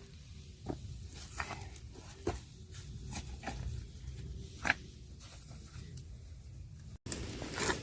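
Stones being shifted, knocking and clacking against each other now and then: about half a dozen separate sharp knocks, the loudest a little past the middle, over a low steady background noise.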